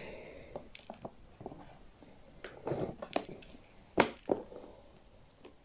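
Clear plastic clip-lock box handled with gloved hands, its lid pressed down and latched shut: a few faint clicks and knocks of plastic, the sharpest click about four seconds in.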